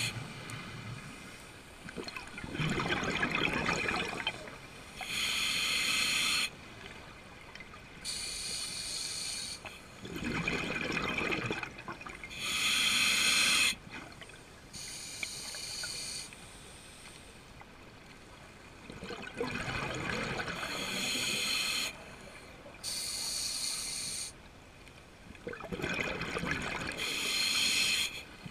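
A scuba diver breathing through a regulator underwater: a hiss on each inhalation alternates with bubbling on each exhalation, in slow breaths a few seconds apart.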